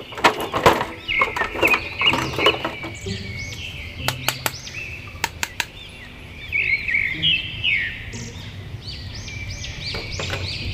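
Plastic blister tray and action figures being handled: sharp clicks and crinkles, loudest in the first two seconds or so, over repeated high chirping in the background.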